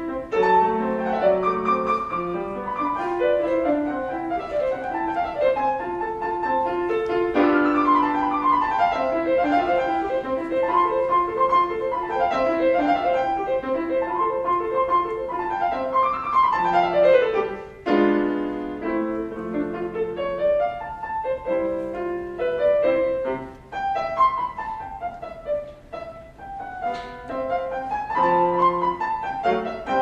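Solo piano music in a classical style, with quick scale runs up and down the keyboard.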